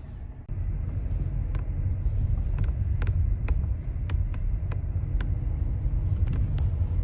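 Geely Monjaro's door trim panel creaking against the dashboard in repeated short, sharp clicks over a steady low road rumble as the car drives over bumps. The creak comes from the hard, coarse rubber strip where the dashboard meets the door card rubbing at the contact point, where dust gathers.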